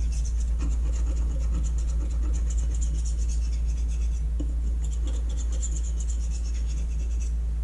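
Steel knife blade stroked back and forth across the 6,000-grit side of a combination sharpening stone: a quick run of scraping strokes polishing out the 1,000-grit scratches and working the burr, stopping shortly before the end. A steady low hum runs underneath.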